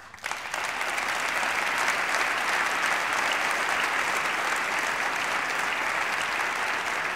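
Large audience applauding: dense, steady clapping that starts suddenly and swells to full strength within the first half second.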